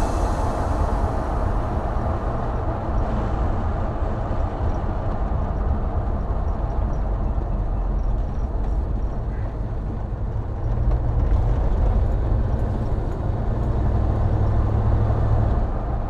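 Rambler American with a small-block Chevy 350 V8 running on the road: a steady low engine and exhaust rumble with road noise, a little louder from about eleven seconds in.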